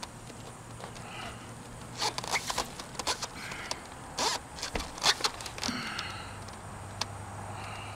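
Quick scrapes and sharp clicks of hands, screws and tools working on corrugated steel roofing panels, bunched mostly between about two and six seconds in. Faint chirping goes on in the background.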